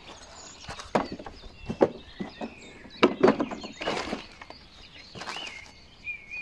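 Hard plastic knocks and clatters as the grass collection bag of a Makita cordless lawn mower is handled and lifted onto the mower, several sharp hits a second or so apart. Birds chirp in the background.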